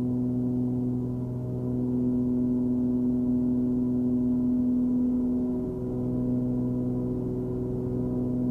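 Cessna 340's twin piston engines and propellers droning steadily in cruise, heard inside the cabin. It is a constant low hum that wavers briefly twice.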